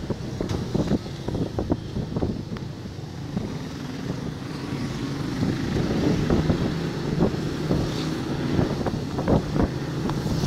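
Motorcycle engine running while riding, with heavy wind buffeting the microphone in short gusts. The engine gets a little louder partway through.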